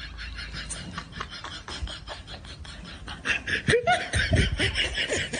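A person snickering: quick breathy pulses, several a second, that rise into louder, pitched giggling about three seconds in.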